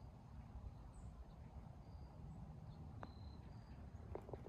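Near silence on a golf green: faint wind rumble on the microphone with a few short high bird chirps. About three seconds in comes a single soft click, a putter striking the golf ball, followed by a few faint ticks near the end.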